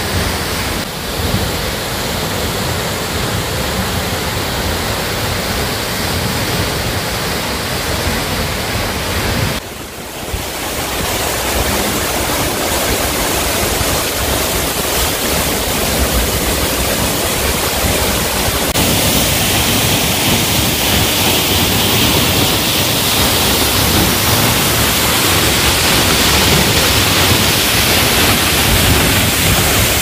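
Waterfall splashing into its plunge pool: a steady rushing noise of falling water. It dips briefly about ten seconds in, then grows louder and hissier from about nineteen seconds on.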